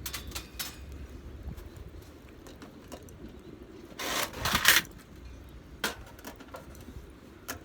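Cooking gear being handled during food prep: scattered light clicks and knocks, with a louder scraping or rustling burst about four seconds in.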